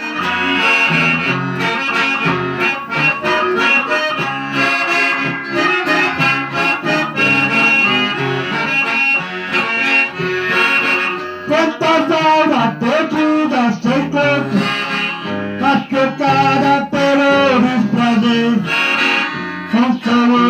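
Instrumental music, with steady held chords and a melody at first. From about halfway through the lead line bends and wavers in pitch.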